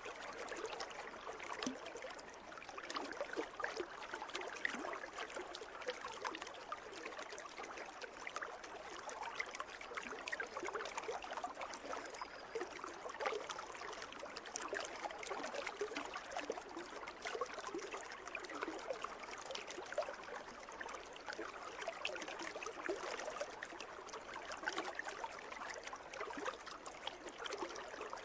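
Pool water trickling and splashing: a steady babble of many small splashes that carries on without a break.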